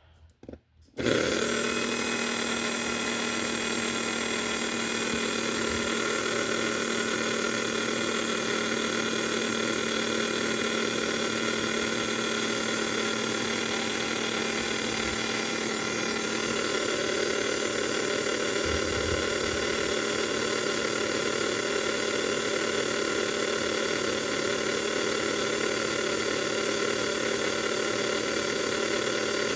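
Small electric motor of a Mega G slot car and its gear drive running flat out at a steady speed: a constant whine and buzz that starts abruptly about a second in.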